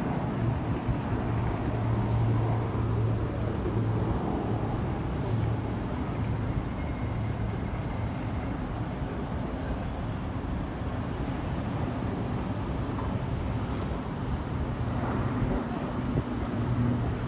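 Distant aircraft engines droning in a steady low hum over the rumble of city traffic.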